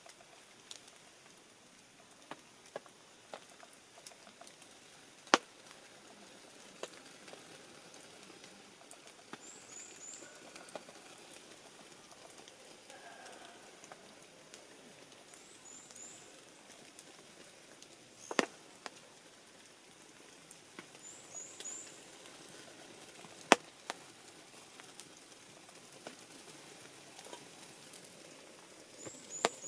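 Wood campfire crackling quietly with scattered sharp pops, four of them loud. A small bird gives short high chirps in quick threes, repeated every few seconds.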